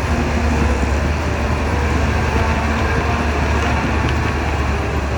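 DH17C3 bulldozer's diesel engine running steadily: a deep, even drone under dense mechanical noise.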